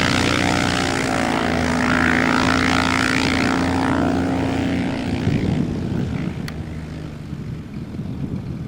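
Cessna Agwagon agricultural plane's piston engine and propeller running loud and steady, then fading from about five seconds in as the plane draws away. A single sharp click shows about six and a half seconds in.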